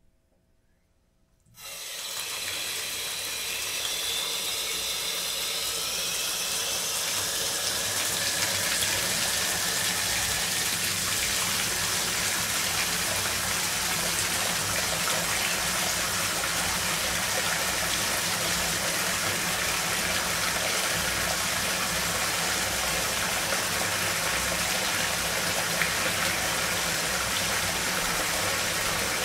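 Bathtub spout running, water pouring into the tub as it fills. It starts about a second and a half in, then runs steady.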